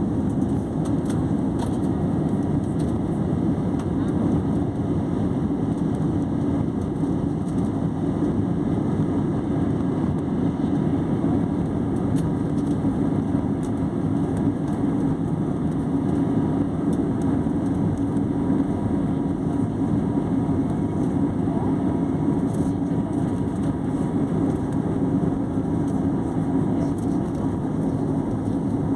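Airliner engines running with a steady, even noise that holds at one level, strongest low in pitch.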